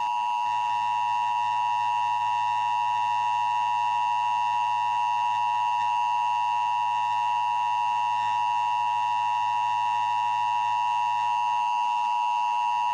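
Emergency Alert System attention signal: a steady two-note tone near 1 kHz, the 853 Hz and 960 Hz pair, held without a break. It announces that an emergency alert message follows.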